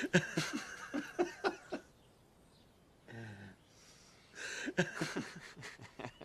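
A man chuckling in two bouts of short, broken laughs, the second starting about halfway through, with a brief hum between them.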